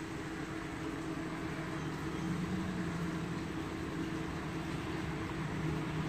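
A steady mechanical drone: a motor or engine running evenly with a constant low hum.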